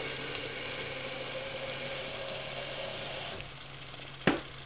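Rice and vermicelli toasting in oil in a pan, sizzling with a steady hiss that eases down about three and a half seconds in. A single short knock near the end.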